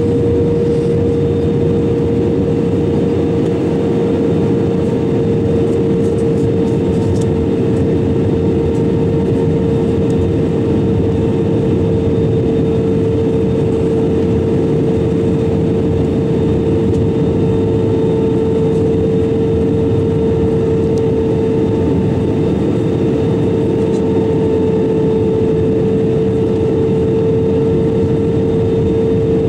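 Airbus A320-200 cabin noise heard from a window seat: steady jet engine drone and airflow rush, with a strong steady hum that drifts slightly lower.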